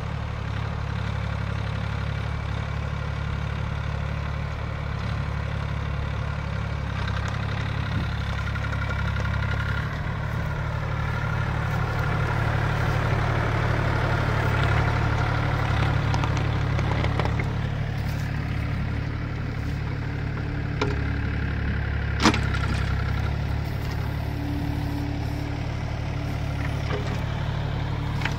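Diesel engine of an Everun ERE18 1.8-ton mini excavator running steadily. A higher whine swells and fades midway, and there is a single sharp knock about two-thirds through.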